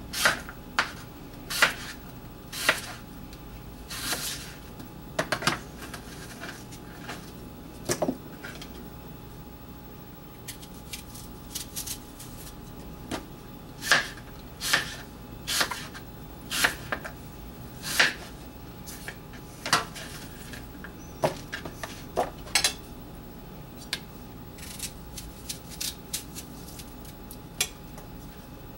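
A chef's knife slicing apple quarters on a plastic cutting board: irregular sharp knocks of the blade striking the board, coming in runs with a quieter stretch about ten seconds in.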